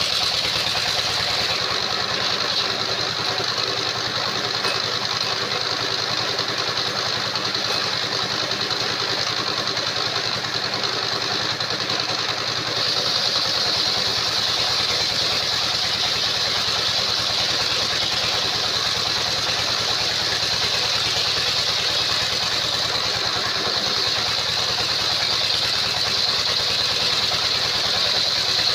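Engine-driven circular sawmill running steadily, engine and spinning saw blade together, with a constant high-pitched whine.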